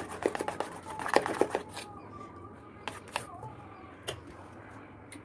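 A spoon clinking and scraping against a steel bowl as thick besan (gram-flour) batter is beaten fast: a quick run of clinks in the first couple of seconds, then only a few scattered taps.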